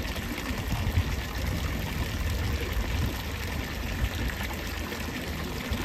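Steady rush of running or pouring water, with a low rumble underneath.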